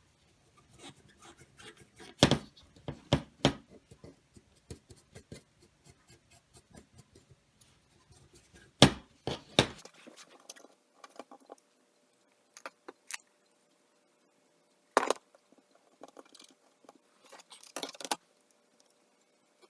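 Small hard objects being handled on a work surface: irregular clicks, taps and knocks with light rattling, the loudest about two seconds in, near nine seconds and at fifteen seconds.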